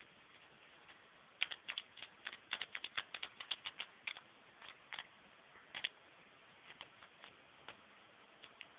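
Fingertips tapping on a wooden tabletop as finger puppets are walked along: a quick, uneven run of light clicks for a few seconds, then a few scattered taps.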